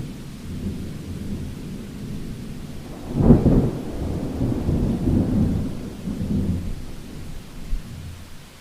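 Heavy rain with thunder rolling through it. A loud clap about three seconds in swells into a long rumble that dies away near the end.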